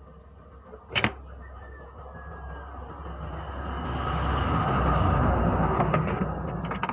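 A single sharp click about a second in, then a rumbling rush that slowly swells and fades again over several seconds: a road vehicle passing.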